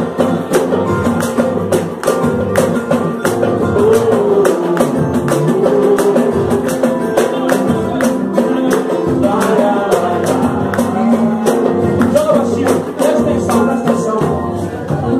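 Upbeat song with a fast, steady percussion beat under a melody line, without sung words.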